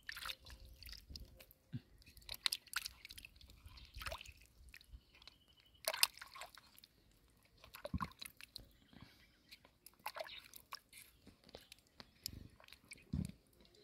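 Hands stirring and splashing in shallow muddy water, with scattered small splashes, drips and wet squelches at irregular moments.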